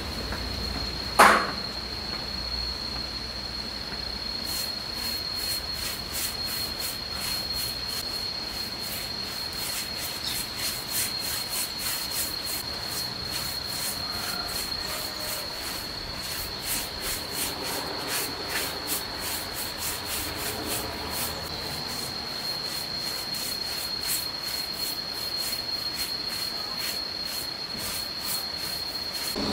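Paintbrush bristles scrubbing stain onto rough-sawn wooden boards in quick back-and-forth strokes, with a steady high insect drone throughout. One sharp knock comes about a second in.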